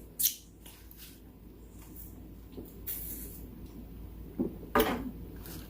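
Close-miked eating sounds of someone chewing spicy chicken wings: a few short, sharp mouth noises, wet clicks and smacks, and a quick hiss of breath.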